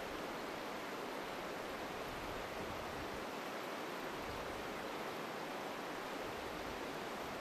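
Shallow river running over stones, a steady rush of water.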